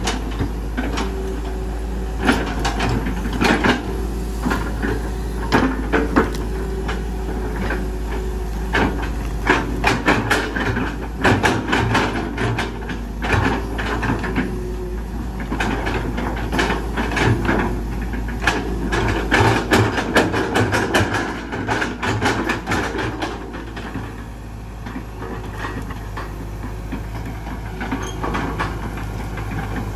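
Hitachi EX120 hydraulic excavator's diesel engine running steadily as its bucket works loose soil. There are many sharp clanks and knocks of the bucket and linkage, which thin out near the end and leave mostly the engine running.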